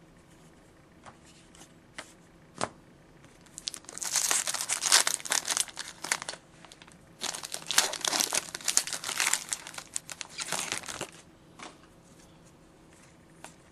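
Foil trading-card pack wrapper being torn open and crinkled while the cards are pulled out, in two long stretches of dense crackling after a few light clicks.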